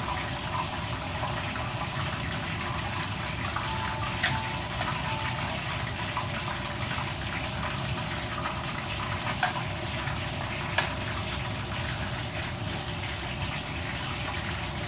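Steady rushing background noise with a few sharp clicks as a large kitchen knife cuts through a roast duck's carcass against a metal tray.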